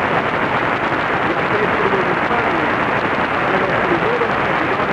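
Weak, long-distance AM broadcast signal on 1490 kHz heard through a radio receiver: a steady wash of static hiss with a faint voice buried underneath.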